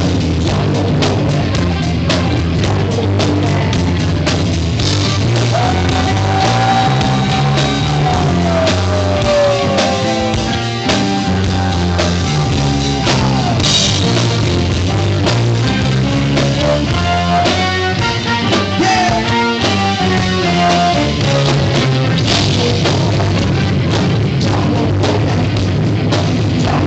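Live rock band playing loud, with a drum kit driving the beat. About six seconds in, a held note slides downward.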